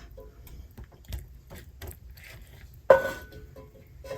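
Light clicks and taps of kitchen utensils and dishes during food preparation, with one sharp clink about three seconds in that rings briefly.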